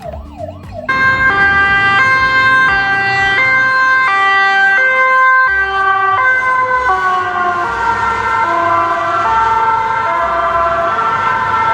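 Two-tone hi-lo ambulance siren starting loudly about a second in, switching between a high and a low note roughly every 0.7 s. Its pitch slides lower through the second half, then it cuts off suddenly. Background music runs underneath.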